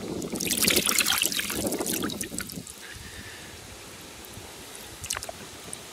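Water splashing and sloshing in a bucket crowded with oranda goldfish as a hand scoops through it, for about the first two and a half seconds. After that it is quieter, with a few drips.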